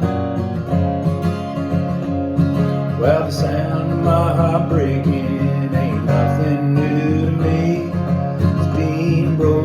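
Country music: strummed acoustic guitar chords, with a sliding, bending lead melody coming in about three seconds in.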